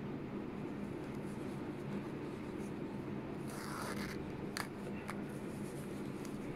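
Embroidery thread drawn through fabric and the cloth rubbing under the hands during hand stitching, soft rustles over a steady low hum, with a brief rustle and two small clicks a little past halfway.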